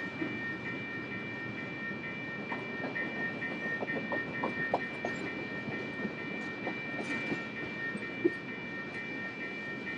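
Tank cars of a freight train rolling past, wheels clicking over the rail joints, with a steady high-pitched whine throughout and one sharp knock about eight seconds in.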